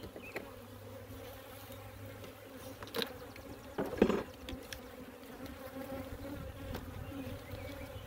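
Honeybees buzzing in a steady hum around an open hive. A few short knocks come through about three and four seconds in, the second the loudest.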